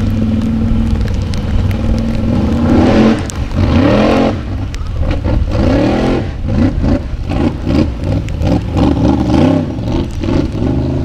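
Formula Offroad buggy's engine revving hard as it drives through mud on paddle tyres: the pitch climbs in long rises for the first few seconds, then rises and drops in quick, repeated revs, about two a second.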